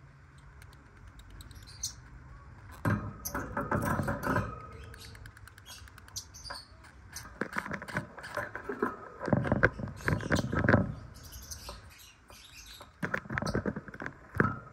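Lovebirds chirping in short high calls amid bursts of scratchy rustling and clicking, which come in clusters about three seconds in, again from about seven to eleven seconds, and near the end.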